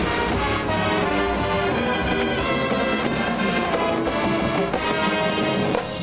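Marching band playing, the brass carrying a line of held notes that change every half second or so over the full ensemble.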